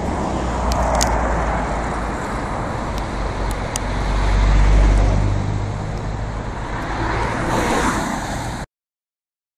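Car cabin sound from a dashcam while driving on a wet road: steady engine and tyre noise with a low rumble that swells about halfway through, then the sound cuts off abruptly near the end.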